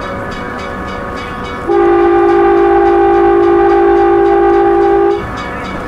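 A railway horn sounds one long, steady two-note blast of about three and a half seconds, starting a couple of seconds in and cutting off sharply. Throughout, the train rolls along with a quick, regular clicking of wheels on rail.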